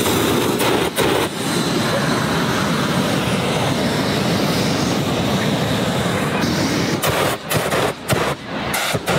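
Hot air balloon propane burner firing with a loud, steady roar that breaks into short, uneven blasts near the end.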